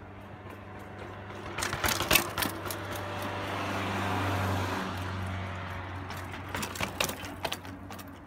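A vehicle on the road below passes, its noise swelling and fading in the middle, over a steady low hum. Clusters of sharp clicks and rattles, the loudest sounds, come about two seconds in and again near the end, from a mountain bike being handled and ridden up to the top of the path.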